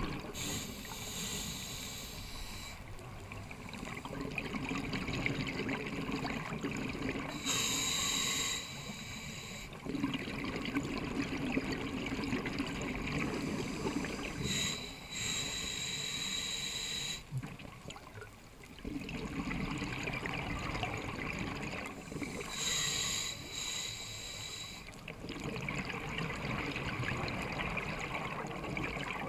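Scuba regulator breathing heard underwater: a hissing inhale with a thin whistle, then a few seconds of bubbling exhaust bubbles. The cycle repeats about every seven seconds, four breaths in all.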